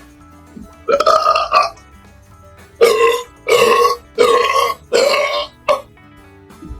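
A person belching loudly: one long burp about a second in, then four burps in quick succession and a short one near the end, over quiet background music.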